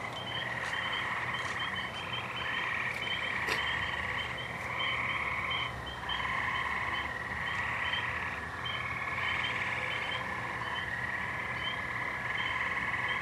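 Night chorus of calling frogs: a steady buzzing trill that breaks off briefly a few times, with rapid short chirps repeating above it.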